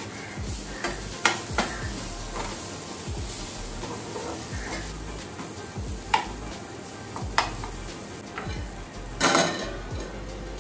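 Food sizzling as it is lightly sautéed in a pan, with a spatula scraping and clacking against the pan every so often, once in a longer stir near the end.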